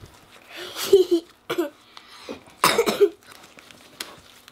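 A child's voice making two short, harsh, breathy cough-like sounds about two seconds apart, with faint sticky clicks of fluffy slime squeezed in the hands between them.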